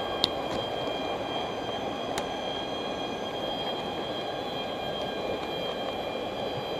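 Shallow stream running fast over stones: a steady rushing of water. A faint steady high tone runs underneath, with a couple of small clicks near the start and about two seconds in.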